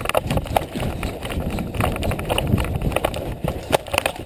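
A person running hard across grass, footfalls thudding, with gear rattling and many irregular sharp clicks and knocks.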